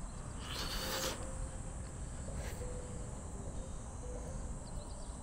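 Steady high-pitched insect drone over a low rumble of wind on the microphone, with a brief hiss about half a second in.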